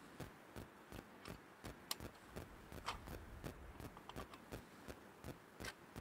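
Faint, irregular light clicks and taps of a sectional tent pole being handled and its sections fitted together.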